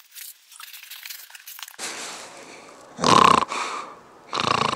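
A man fakes snoring twice, with two loud, coarse snores about three seconds in and near the end. Before them, the packed down jacket's fabric rustles faintly as he handles it.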